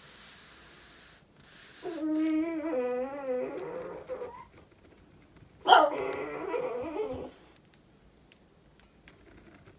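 A dog whining for attention: a drawn-out, wavering whine about two seconds in, then a sharp yelp just past the middle that runs into a second whine.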